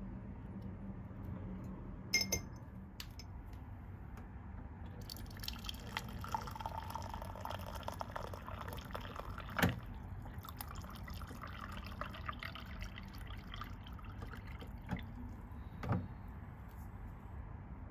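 Warm water from a hot-and-cold water dispenser running into a ceramic mug, with a few sharp knocks and clicks from the mug and the dispenser's push button.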